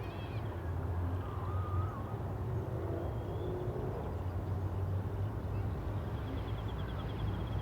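Suburban evening ambience dominated by the steady low rumble of distant traffic. Faint distant voices come through it, and a quick high trill sounds near the end.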